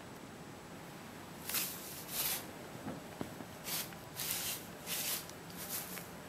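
Short rustles as a kitten plays with tinsel on a bedspread, about six of them, starting about a second and a half in.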